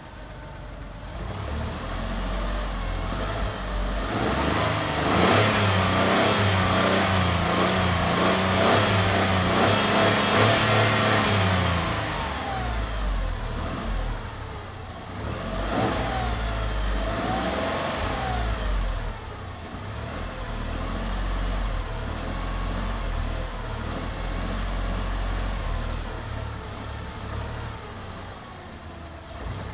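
Tata Tigor's three-cylinder engine revved while stationary, heard from inside the cabin. The revs climb over the first few seconds, are held high for several seconds, then fall away. Two short blips follow, and the engine settles back to a lower, steadier run.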